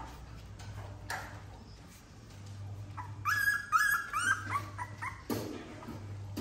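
Puppies whimpering and yipping: a quick run of short, high-pitched cries about three seconds in, lasting a couple of seconds.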